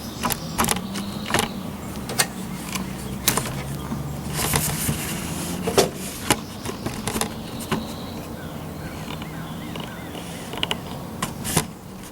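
Handling noise on a hand-held camera: a run of sharp clicks and knocks over a low steady hum, with a brief rush of noise about four and a half seconds in.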